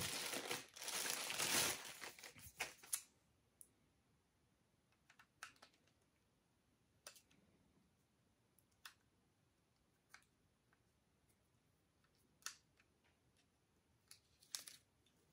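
Packaging rustling for about three seconds, then scattered light clicks and taps as the clipper and its charging dock are handled.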